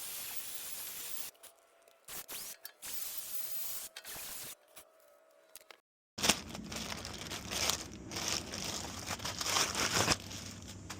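Cleaning the wheel bearing mating surface on the steering knuckle by hand: a few short steady hisses, then several seconds of irregular scraping and scrubbing.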